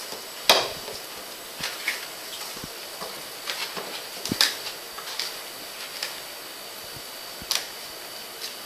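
Scattered scratches and taps of kittens' claws on a cardboard box and tile floor, the loudest about half a second in, over a steady hiss.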